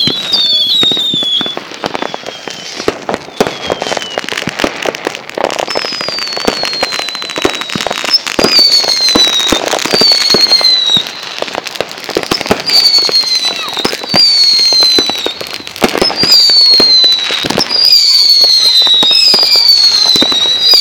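Fireworks going off: a dense run of crackling pops, joined about a third of the way in by falling whistles that repeat roughly once a second.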